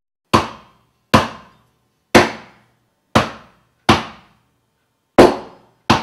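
A chicken being chopped into pieces with a heavy knife: seven loud, sharp blows, roughly one a second, each with a short ringing tail.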